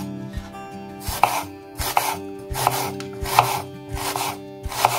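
Kitchen knife slicing through an onion and knocking on a bamboo cutting board: a steady run of about seven cuts, each a short crunchy hiss ending in a knock, roughly one every three-quarters of a second.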